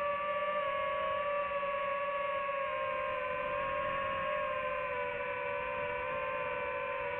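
FPV drone's propellers and motors whining steadily, several tones held together and drifting only slightly in pitch.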